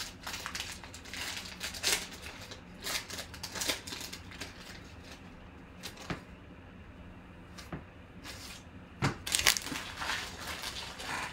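Plastic trading-card pack wrapper torn open and crinkled by hand, with rustling as the cards are slid out. The crinkling is busy at first, sparser in the middle, and louder again about nine seconds in.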